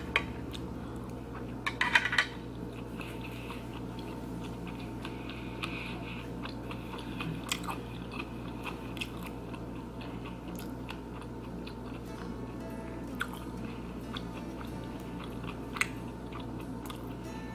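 A person chewing and biting food close to the microphone, with small wet mouth clicks throughout and a louder bite about two seconds in, over a steady low hum.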